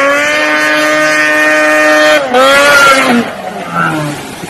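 Small vehicle engine held at high revs as the machine skims across a lake. It breaks briefly about two seconds in, rises again, then drops in pitch and dies away about three seconds in, leaving wind and water noise.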